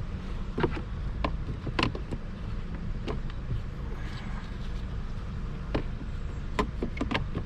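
Plastic cover of a Kia Sorento's cabin air filter housing being fitted back into place: several scattered sharp clicks and knocks over a steady low hum.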